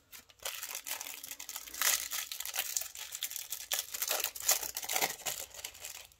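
Thin clear plastic wrapper around trading-card promos crinkling and crackling as it is handled and the cards are pulled out of it. The crackle starts about half a second in and stops abruptly just before the end.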